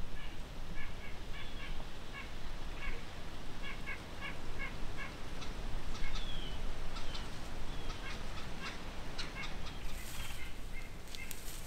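Wild birds calling: several quick runs of short repeated notes and a few higher falling chirps, with some sharp ticks near the end.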